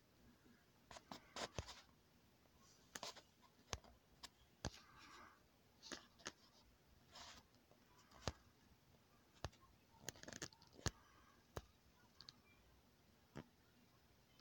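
Near silence broken by about fifteen faint, irregularly spaced sharp clicks and a few brief scratchy rustles, several bunched together in the first couple of seconds.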